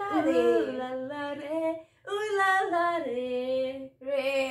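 A woman singing a Hindi film song unaccompanied, in long held, sliding notes, phrase by phrase with short breaks about two and four seconds in.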